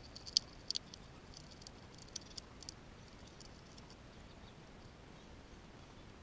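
Fox squirrel gnawing and chewing food held in its paws, up close: a run of crisp, sharp clicks in the first three seconds, thinning out afterwards.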